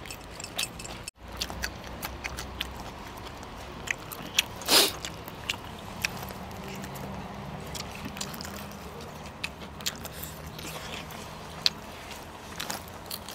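Close-up eating sounds from a person chewing and biting, with scattered small clicks all through and one loud, short noisy burst just under five seconds in.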